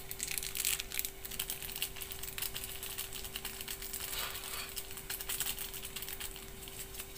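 Irregular rapid crinkling and ticking of a small plastic seasoning sachet being shaken and squeezed out over a plate. A faint steady hum runs underneath.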